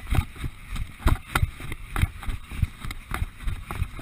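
Footsteps on grass, heard through a moving action camera while carrying jerry cans: dull thuds about twice a second over a low rumble.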